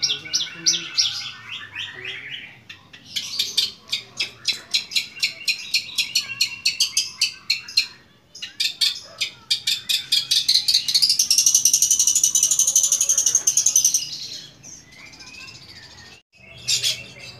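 Caged long-tailed shrike (cendet) in full song. It sings fast trains of sharp repeated notes, then a loud, high, continuous trill lasting several seconds, then quieter notes and a brief loud burst near the end.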